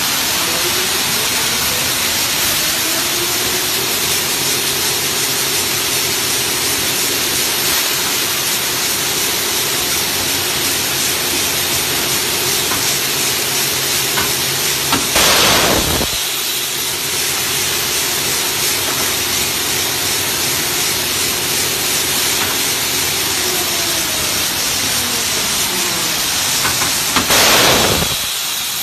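Adhesive tape slitting and rewinding machine running over a constant rushing noise. Its motor whine rises in pitch as it speeds up over the first few seconds, holds steady, then falls as it slows near the end. Two short, loud hissing bursts break in, about halfway through and just before the end.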